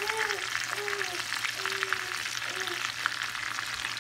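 Breaded chicken breasts shallow-frying in hot oil in a skillet: a steady crackling sizzle full of small pops.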